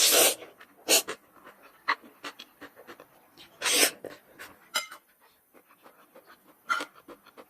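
Close-up eating of spicy noodles: four loud breathy sucking sounds, a second or more apart, with soft chewing clicks and smacks between them.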